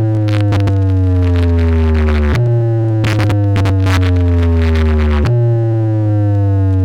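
Electronic synthesizer sound played loud through a sound system: a deep bass note with tones above it slowly gliding down in pitch, restarting about every three seconds, with sharp percussive hits over the top.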